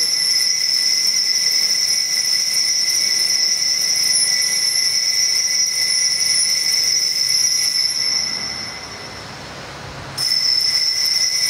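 Altar bell ringing continuously in a steady high ring during the elevation of the consecrated host. The ringing fades out about eight seconds in and starts again abruptly about two seconds later.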